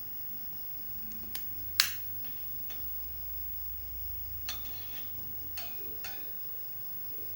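A few sharp clicks and light taps, the loudest about two seconds in and smaller ones near the middle and later, over a faint low rumble.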